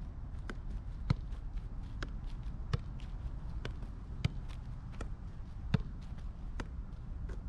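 Soccer ball being juggled: a steady run of dull touches as the ball comes off foot and thigh, about two a second.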